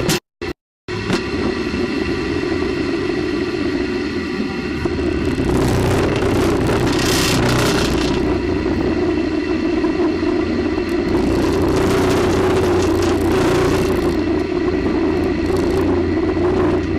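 Onboard-camera sound of a space shuttle solid rocket booster in flight: a steady loud roar with a low drone. It cuts out twice within the first second, and rushes of hiss swell up about halfway through and again later.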